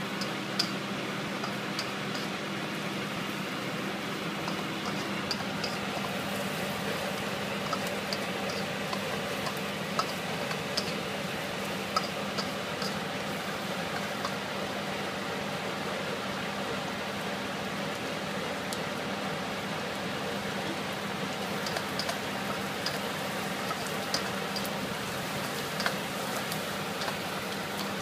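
Chopped garlic sizzling in oil in a stainless steel wok over a gas flame, with short sharp ticks of the spatula against the wok every second or so over a steady low hum.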